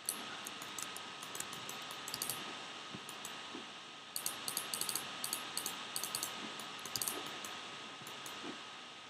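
Clusters of quick computer mouse and keyboard clicks: a run in the first couple of seconds, a short pause, then a denser run from about four seconds until near the end, over a faint steady hiss with a thin high whine.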